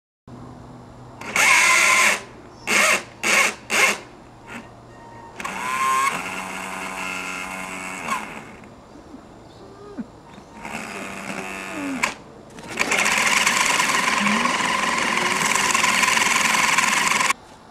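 Brushed 540-size electric motor and gearing of a 1:6 RC Hummer H1 whining in throttle bursts as its wheels spin in snow: four short blips, then longer runs, the last a steady whine of about four and a half seconds that cuts off sharply.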